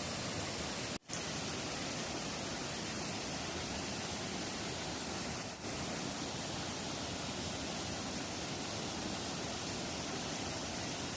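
Steady, even rushing noise with no distinct events, cut off briefly about a second in and dipping slightly near the middle.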